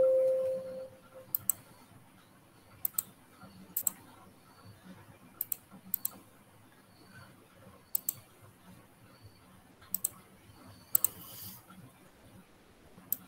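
A short computer alert chime rings as a PowerPoint dialog box pops up. It is followed by scattered mouse clicks and key taps, single or in pairs, every second or two.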